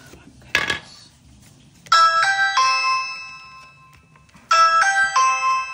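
A sharp click, then a Ring video doorbell's electronic chime plays twice, each time a quick run of three notes that ring on and fade.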